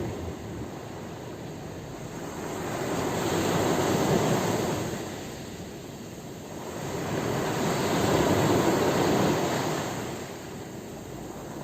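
Sea waves breaking and washing up the shore, the rushing noise swelling and falling back twice, about four to five seconds apart.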